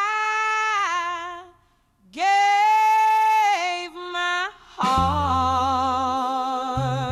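A woman's voice sings long wordless notes unaccompanied, two held phrases with a short breath between them. About five seconds in, a blues band with bass joins under the voice.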